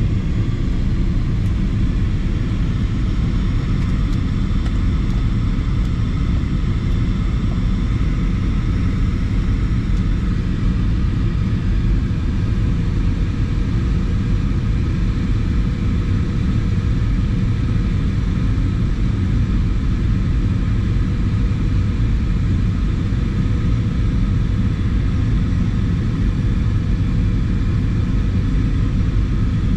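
Airbus A320 cabin noise from a rear seat: the steady, unchanging rumble of the jet engines and airflow.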